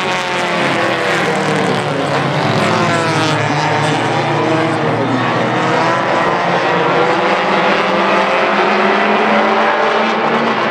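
A pack of tuner-class race cars running at race speed on a paved oval, their engines droning together, the pitch rising and falling as cars accelerate, lift and pass.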